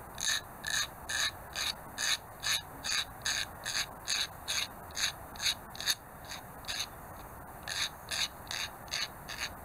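Small sanding stick rubbed back and forth along the edge of a brass photoetch part, taking off the nubs left from cutting it off the fret. A steady run of light, high-pitched rasping strokes, a little over two a second, with a short break about two-thirds of the way through.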